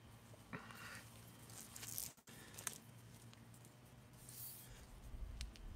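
Mostly quiet, with faint rustling and scuffing of handling. There is a short rasping sound about half a second in, the sound cuts out for an instant a little past two seconds, and a low rumble builds near the end.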